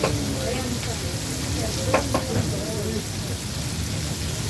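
Steady hiss of rain falling, with a couple of sharp knocks, one at the start and one about two seconds in.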